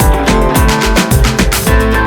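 Background music: a steady beat with plucked guitar.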